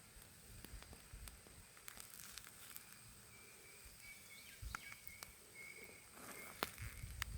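Faint crackling of a wood campfire: scattered sharp pops and snaps. Under them runs a steady thin high whine, with a string of short high chirps through the middle.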